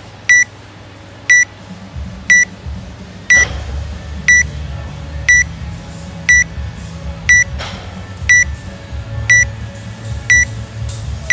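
Timer app counting down to a workout start with short, high electronic beeps, one each second. From about two seconds in, a low drone runs underneath.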